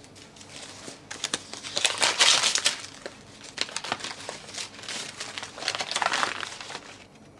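A paper envelope being torn open and the letter inside handled: irregular crinkling and rustling of paper, loudest about two seconds in and again near six seconds.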